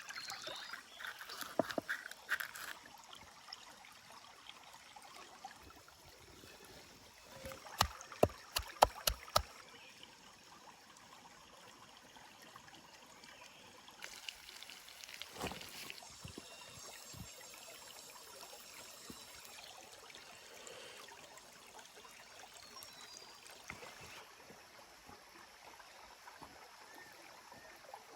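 Stream water flowing steadily. A few clicks come near the start, a quick run of about six sharp knocks about eight seconds in, and a single thump around the middle.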